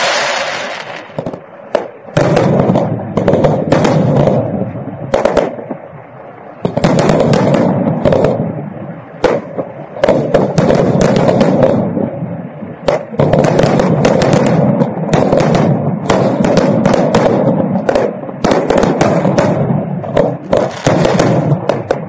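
Aerial firework shells bursting in rapid succession: loud sharp bangs over a continuous rumble, with brief lulls every few seconds.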